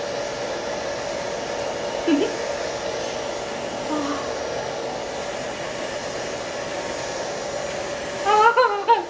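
Small fan motor of a USB-powered bubble machine running with a steady whir and a constant hum as it blows out streams of bubbles. A woman gives short laughs and exclamations over it, the loudest one near the end.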